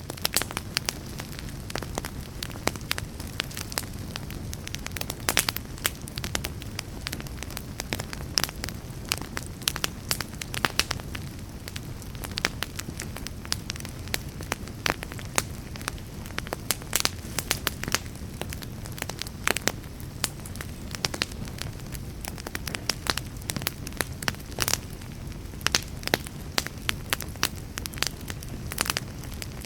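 Wood fire in a fireplace crackling: many irregular sharp pops and snaps from the burning logs over a steady low rumble of the flames.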